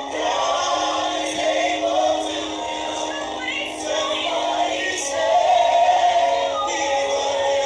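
A small group of voices singing a slow worship song together, holding long notes.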